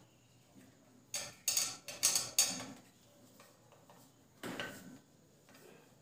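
Metal screwdriver working the screws that hold the ceiling fan's blades to the motor housing, with metallic scraping and clinking. A quick run of about four short scrapes comes a little over a second in, and one more follows about two seconds later.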